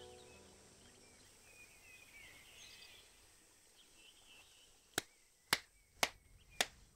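A man clapping his hands slowly in applause, four claps about half a second apart starting about five seconds in. Before that the last notes of a zither die away, and faint bird chirps are heard.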